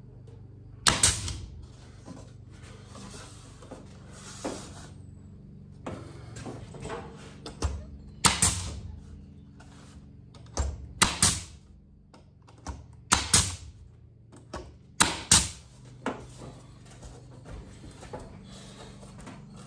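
Pneumatic finishing nailer firing brads into 9 mm board: about eight sharp shots, irregularly spaced, several in quick pairs, with lighter knocks between them.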